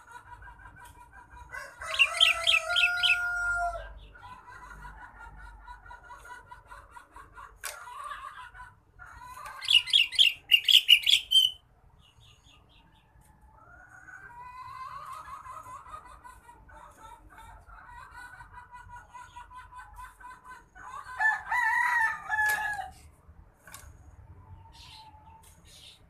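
Sooty-headed bulbul (kutilang) calling in three loud bursts of bright chirping notes, about two seconds in, about ten seconds in and near the end. Lower, longer calls are mixed in, over a steady background of other birds calling.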